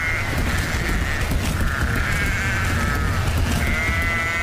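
Recorded dance soundtrack over a stage sound system: a long, wavering high tone near the start and again near the end, over a steady hiss and a low rumble.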